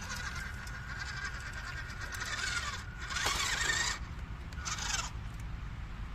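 Small electric motor and gearbox of a 1/16 WPL RC crawler whining steadily at a high pitch as the truck drives, then two brief, louder, noisier bursts in the middle and about five seconds in.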